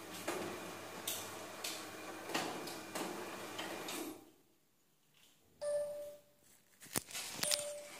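Motorised ceiling-mount projector trolley running along its overhead track, a steady mechanical running noise with repeated clicks that stops abruptly about four seconds in. Two short beeps and a sharp click follow in the last few seconds.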